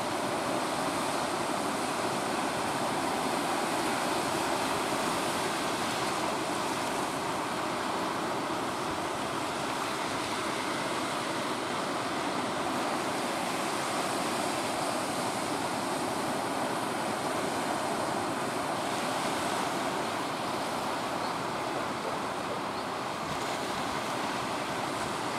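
Steady rush of surf breaking and washing along a beach.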